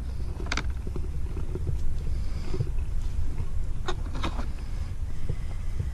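Wind rumbling on the microphone, with a few sharp plastic clicks and knocks, two of them close together about four seconds in, as the pressure washer's detergent bottle is unclipped and handled.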